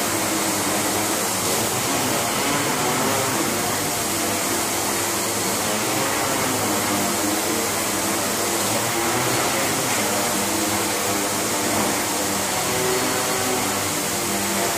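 A hexacopter's six electric motors and propellers whir steadily in flight, a loud even drone with a broad hiss. The propeller tones waver slightly in pitch as the PID attitude controller varies motor speeds to hold the craft level against pushes.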